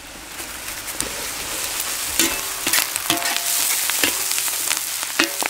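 Chopped onions, green chillies and curry leaves sizzling in hot gingelly (sesame) oil in a large pan. A metal slotted ladle stirs them, scraping and now and then clinking against the pan.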